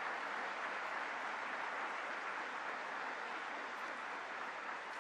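Theater audience applauding: a steady, even clatter of many hands that eases off slightly near the end.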